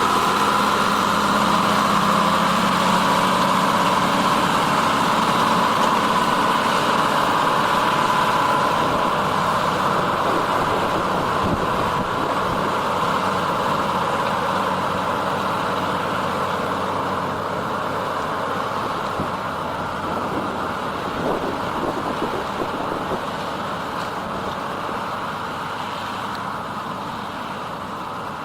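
John Deere 3650 tractor's diesel engine running steadily under load, gradually fading over the stretch.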